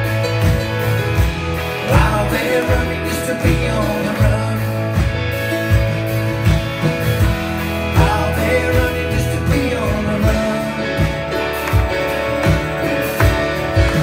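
Live band playing a rock song: guitars, bass, keyboard and drums with a steady beat.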